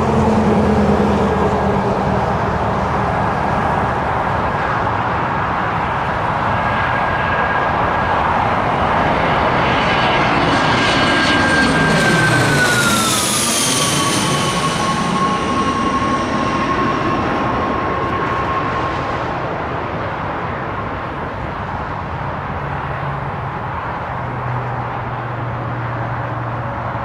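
Twin-engine business jet on final approach with gear down, its turbofans whining over a broad rush of engine noise. About halfway through it passes directly overhead and the whine drops sharply in pitch, then fades as the jet moves away toward the runway.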